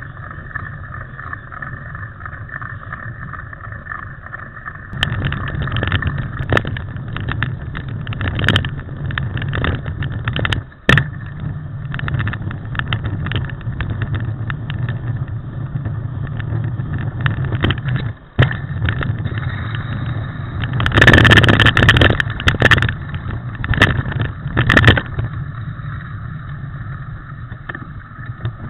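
Mountain bike riding over a rough dirt trail, heard through the bike's on-board camera: a steady rush of wind and tyre noise, joined about five seconds in by rapid knocks and rattles as the bike bounces over the ground. The rattling is loudest in a burst a little past the middle.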